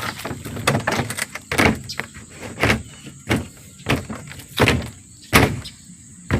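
An irregular series of sharp knocks or thumps, about ten of them, roughly one every half second to a second.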